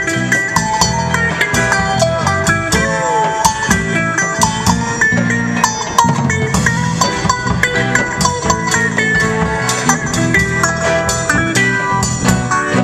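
Live band playing an instrumental break, with guitar melody over a steady drum beat and no vocals.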